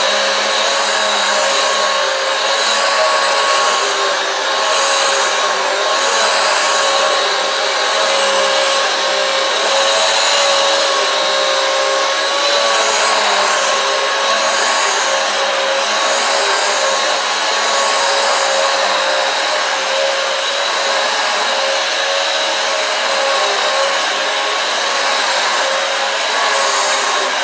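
Vacuum cleaner running steadily on a rug with a constant whine, its brush roll driven by a newly fitted drive belt.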